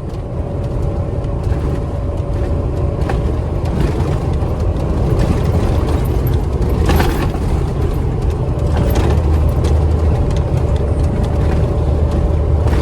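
Steady drone of a KamAZ 4308 truck's diesel engine under load, heard from inside the cab while driving, mixed with road and wind noise. A few short knocks come through, one stronger about seven seconds in. The engine is working hard against a strong side wind; the driver says the truck barely pulls and fuel use is near 30 litres.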